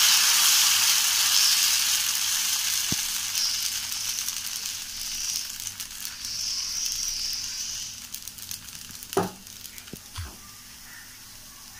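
Spinach dosa batter sizzling on a hot iron tava as a ladle spreads it into a round; the sizzle is loudest at first and dies down over several seconds. Two soft knocks near the end.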